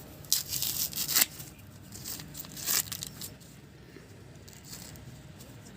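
Dry maize husk being torn and peeled back from an ear of corn to check the kernels: several sharp tearing strokes in the first second or so and one more near the middle, then a faint rustle.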